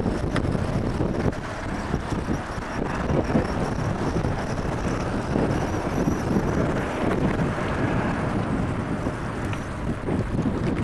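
Gusty wind buffeting the microphone of a bicycle-mounted action camera while riding. A faint, thin, high screech comes from a leaf caught in the bicycle's brake pads.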